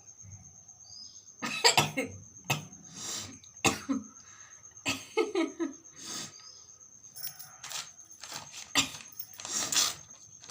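A person coughing in short, sharp bursts, about eight of them a second or so apart, while trying to force a sneeze.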